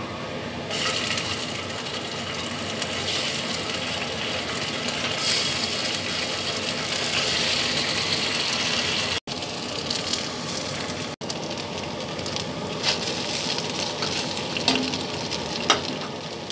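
Hot oil sizzling in a wok as slices of radish cake (lo bak go) fry in it, a steady frying hiss. In the second half a metal spatula taps and scrapes against the pan with scattered sharp clicks.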